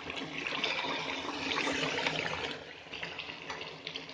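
Aloo gobi matar curry sizzling and crackling in a pot while a ladle stirs it; the hiss eases off after about two and a half seconds.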